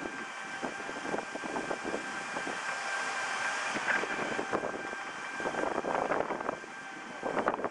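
Outdoor city background noise with a few faint steady high tones, broken by irregular knocks and scuffs from walking with a handheld camera, thickest about three-quarters of the way in.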